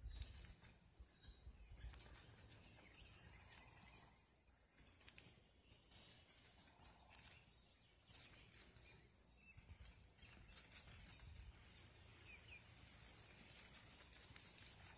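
Faint farmyard ambience with a couple of distant goat bleats and, twice, a short high rapid trill over a steady hiss.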